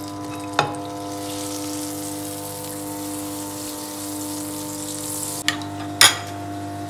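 Butter sizzling in a stainless steel skillet as the pan is tilted and swirled, with a few sharp metallic clinks, the loudest about six seconds in.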